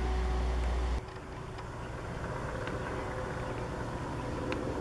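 Outdoor background noise: a steady low rumble that cuts off about a second in, followed by a softer steady hum with a few faint ticks.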